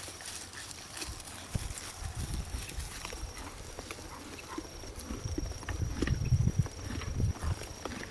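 A horse walking over grassy pasture: soft, irregular hoofbeats with low thuds, heaviest about six seconds in.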